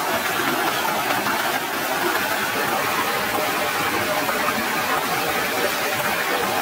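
Stream and small waterfall rushing steadily, an unbroken even wash of water noise.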